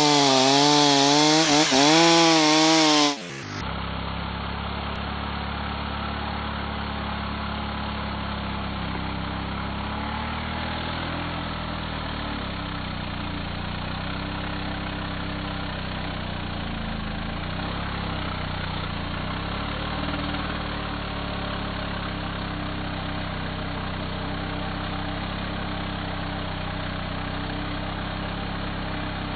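Chainsaw cutting into a log, the engine revving with a wavering pitch. About three seconds in the sound turns abruptly to a quieter, duller, deeper steady drone of the saw cutting, which then holds steady.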